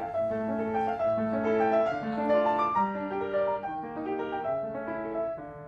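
Upright piano playing a short melodic phrase, several notes sounding together, with the notes dying away near the end.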